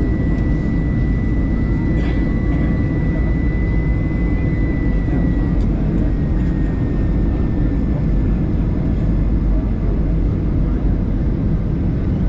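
Airbus A320-214 cabin noise during landing: the steady rush of airflow and CFM56 engines, with a thin high engine whine that drops slightly in pitch about halfway through.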